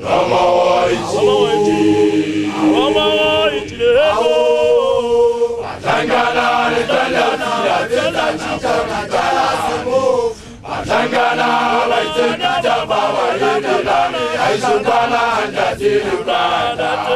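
Male voices chanting a Sesotho initiation song together without instruments, with long held and sliding notes. There is a brief break about ten seconds in.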